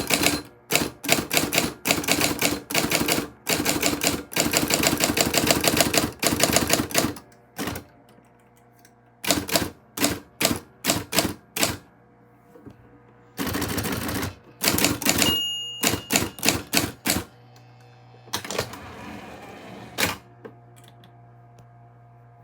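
Typewriter being typed on: quick runs of keystrikes for the first several seconds, then slower single strokes with pauses. The typewriter's bell dings once about fifteen seconds in.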